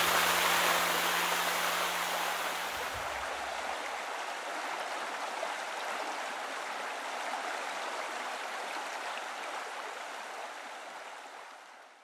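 Rushing water of a mountain stream and waterfall, a steady hiss that slowly fades out near the end. The last of the background music dies away in the first few seconds.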